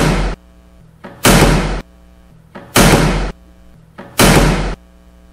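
Heavy banging on a door, a loud boom about every second and a half, each with a short echoing tail, over a low steady hum.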